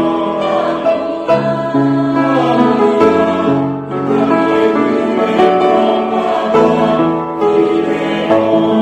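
Church choir singing a hymn together with piano accompaniment.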